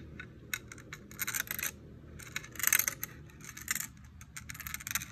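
A 4.5mm 14k yellow gold yacht link chain clinking as it is lowered link by link onto a digital scale's pan, in several bunches of light metallic jingling.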